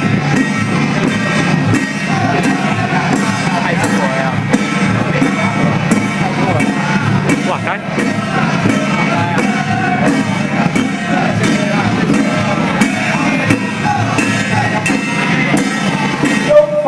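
Loud music with voices singing or chanting over a steady beat, with a few shouts.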